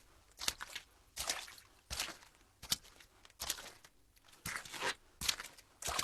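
Foley footsteps: shoes walking at a steady pace on a wet, water-splashed floor, about eight splashy steps, made to sound like walking on rain-soaked ground.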